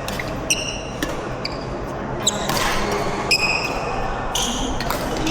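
Badminton rally: rackets striking the shuttlecock with sharp cracks, mixed with short high squeaks of shoes on the court floor, several of them about half a second in, a little past three seconds and over the last second.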